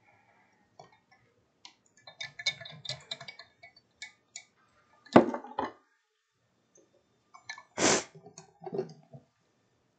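Scattered clicks, clinks and knocks of painting supplies being handled on a tabletop, with two louder sudden sounds about five and eight seconds in, the second as a paint palette is set down.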